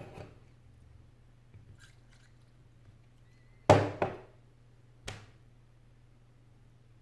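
Sharp clicks and snaps as a metal pry tool works an Apple iPad 4's touchscreen glass loose from its aluminium frame: one at the start, a loud pair close together about four seconds in and another a second later.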